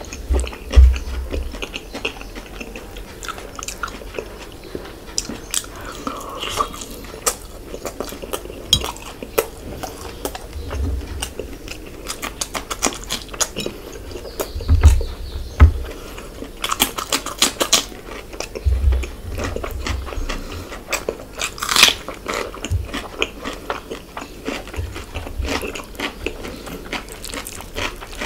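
Eating a spicy fish curry by hand: chewing and wet mouth smacks, with many short clicks and squelches as fingers work the curry and fish in a steel plate. There are a few low thumps.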